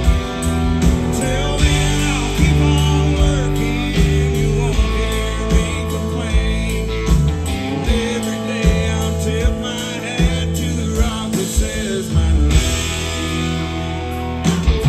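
Southern rock band playing live: electric guitars over bass and drums with a steady beat.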